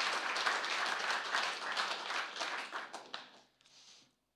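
Congregation applauding, the clapping fading away about three seconds in.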